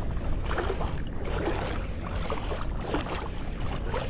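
Shallow seawater sloshing and splashing around the legs of a wading angler as he walks after a hooked fish, over a steady low rumble of wind on the microphone.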